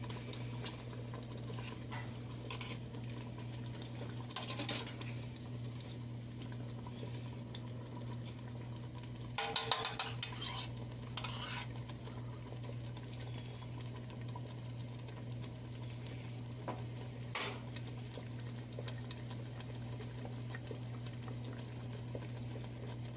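Sausages in tomato sauce simmering in an enamel stockpot, with faint, steady bubbling and popping. A few knocks of a utensil against the pot stand out; the loudest comes about ten seconds in. A steady low hum runs underneath.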